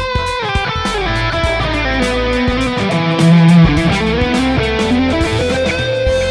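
Electric guitar played through a Hotone Ampero 2 multi-effects processor, with long held lead notes that slide and bend in pitch, over a backing with steady low bass notes and regular sharp beats.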